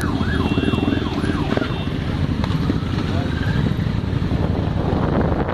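Many motorcycle engines running together in a low, steady rumble. A siren warbles fast, rising and falling about three times a second, and stops about two seconds in.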